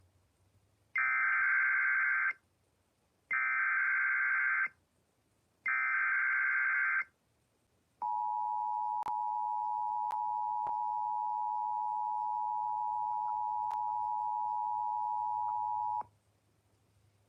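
Emergency Alert System SAME header: three bursts of buzzing data tones, each about a second and a half long with short gaps between. They are followed by the EAS two-tone attention signal, a steady dual tone held for about eight seconds, which announces an emergency warning.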